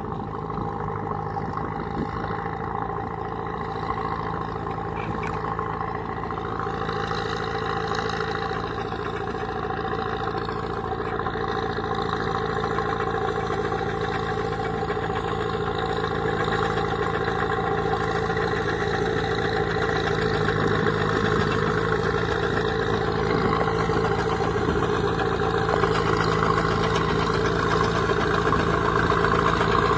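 Diesel engine of a tracked Massey Ferguson tractor running steadily while it works a rotavator, growing gradually louder as it comes closer.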